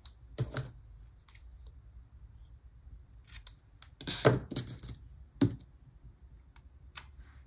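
Scissors snipping paper sticker sheets in several short, separate cuts, the loudest cluster about four seconds in.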